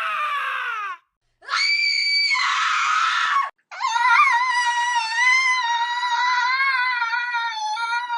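Cartoon sound effects of high-pitched screams: a cry falling in pitch that ends about a second in, a short cry that rises and holds, then a long wavering high-pitched wail.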